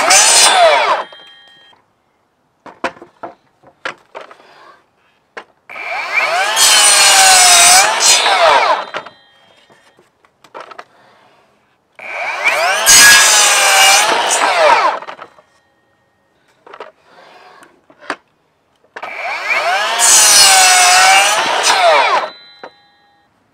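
Ryobi ONE+ 18V brushless sliding miter saw, running on two batteries, cutting through wooden boards. The tail of one cut comes first, then three full cuts a few seconds apart. In each cut the motor's whine dips in pitch as the blade bites into the wood and climbs back as it comes through. Short knocks and clatter come between the cuts.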